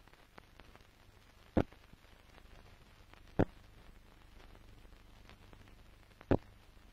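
Steady hiss and crackle of an old film soundtrack, with three sharp clicks at uneven gaps: about one and a half seconds in, near the middle and near the end.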